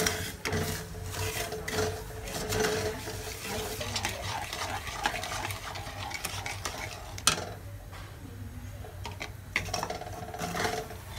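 A perforated steel ladle stirs and scrapes melting jaggery syrup around a kadhai, with metal clinking against the pan. The sharpest clink comes about seven seconds in, and there are several more near the end.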